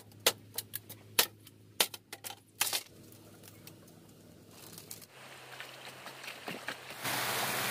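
A machete knocking sharply against a bamboo pole as it is split, about ten irregular strikes in the first three seconds. Near the end a steady rush of flowing stream water comes in.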